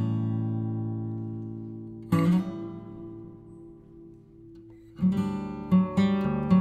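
Background music on acoustic guitar: a strummed chord rings out and fades, another is struck about two seconds in, and a steady strumming rhythm starts near the end.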